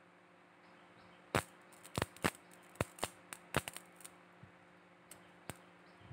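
Homemade transformer battery spot welder firing: an irregular run of about ten sharp snaps and clicks over four seconds, the loudest first, over a faint steady hum.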